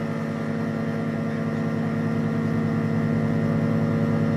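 Chevrolet 377 small-block V8 with dual four-barrel carburettors idling steadily.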